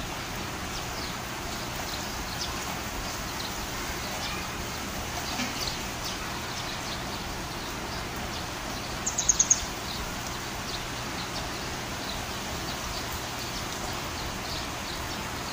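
Steady rain falling, with scattered bird chirps over it. About nine seconds in comes a quick run of four sharp, high notes.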